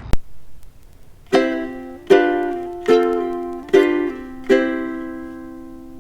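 Music: a plucked string instrument strums five chords, each ringing out, the last one fading slowly. A short click comes right at the start.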